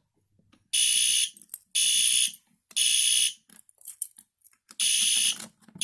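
System Sensor SpectrAlert Advanced fire alarm horn sounding in the temporal-3 evacuation pattern, set off by the Mircom MS-501U pull station: three short buzzy blasts, a pause of about a second and a half, then the next group begins. Faint handling noises come between the blasts.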